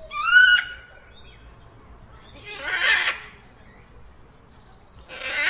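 Macaw calls: a short pitched call that rises in pitch, then two harsh screeches about two and a half seconds apart.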